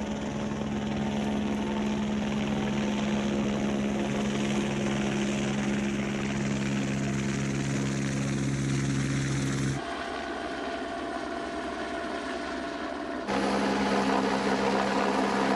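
Aircraft in flight: a steady propeller hum with several fixed pitched tones, changing abruptly twice.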